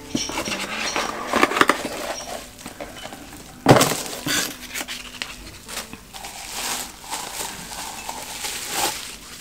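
Bubble wrap rustling and crinkling as small ceramic cups are unwrapped, with light clinks and one sharp, loud click about three and a half seconds in.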